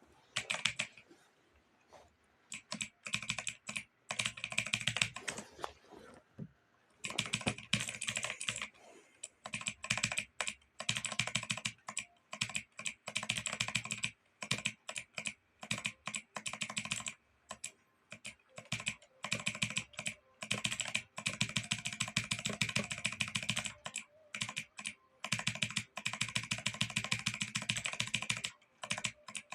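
Computer keyboard being typed on in fast runs of keystrokes, broken by short pauses.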